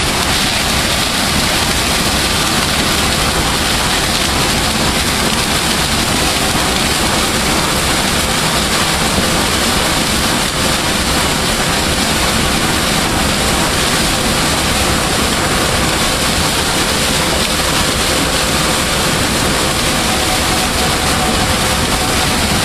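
Claas Lexion 770 combine harvester running with a Geringhoff Northstar corn head while harvesting corn: a loud, steady rush of machinery noise with a faint hum.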